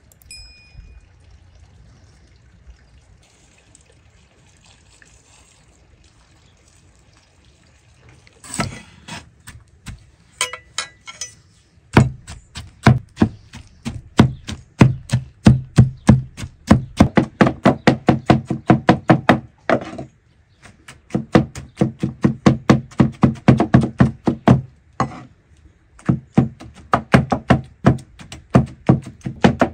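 Two cleavers chopping tomatoes on a wooden cutting board: rapid, even knocks, several a second, starting after a quiet stretch and breaking off briefly twice.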